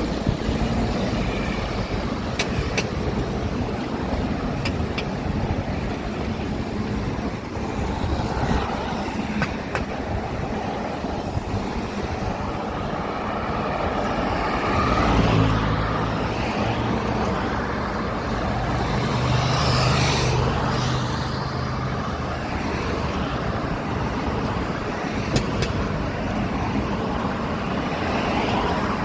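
City street traffic: a steady wash of passing cars, with a larger vehicle's engine rumbling past through the middle, loudest a little past halfway.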